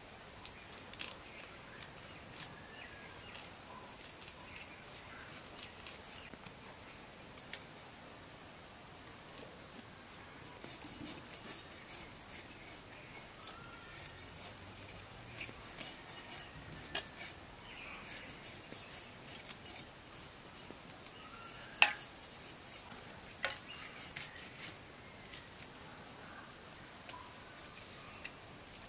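A steady high-pitched insect drone, with scattered clicks and clinks from knives and steel bowls as small fish are cleaned by hand, one louder click about two-thirds of the way through. A few faint bird chirps.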